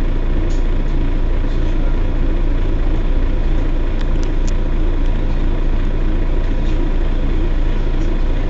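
Mercedes-Benz Citaro Facelift city bus engine idling steadily, a constant low hum that neither rises nor falls. Two faint short high chirps come about four seconds in.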